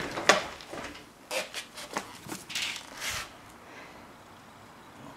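Handling noise from a camera being carried and moved about: a run of short rustles, knocks and swishes over the first three seconds, then quiet.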